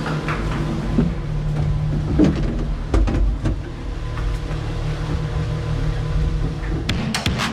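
Ski lift ride heard from on board: a steady low mechanical hum with scattered knocks and rattles.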